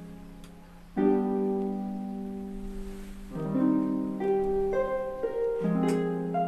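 Slow instrumental background music: held chords that change about every two seconds, with single higher notes over them.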